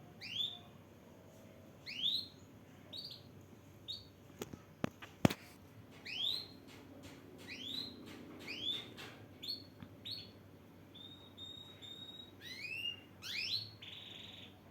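Male canary calling: a series of clear whistled notes, each sweeping upward, repeated about once a second, with a few short level notes and a brief buzzy note near the end. A few sharp clicks about five seconds in are the loudest sounds.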